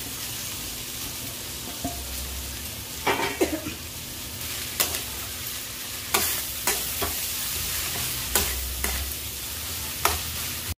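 A slotted steel spatula scrapes and knocks against a kadhai in irregular strokes as grated potato is stirred into frying fenugreek leaves and onion, over a steady sizzle from the pan.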